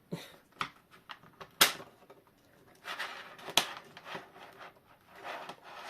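Hand work on a clock mainspring being coiled tighter and held with zip ties: scattered scraping and rustling, with two sharp clicks, the first about one and a half seconds in and the louder about two seconds later.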